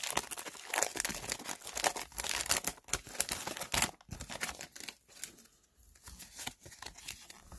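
Paper wrapper of a 1992-93 O-Pee-Chee hockey card pack being torn open and crinkled by hand, with dense crackling over about the first four seconds and fainter handling after.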